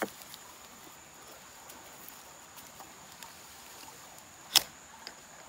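Ferro rod fire starter scraped with a striker over dry-leaf tinder: a few faint scratches, then one sharp, loud scrape about four and a half seconds in and a smaller one just after. A steady high insect drone runs underneath.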